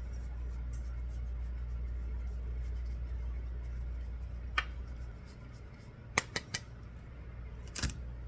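A kitchen knife tapping on a cutting board a few times while cubing cheese, with a low steady hum underneath that stops about five seconds in.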